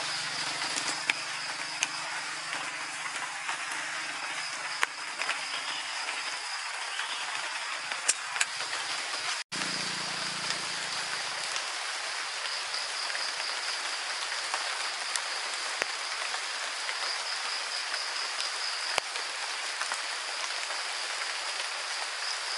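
Heavy rain falling on forest foliage: a dense, steady hiss with scattered sharp drip clicks, over a steady high-pitched whine.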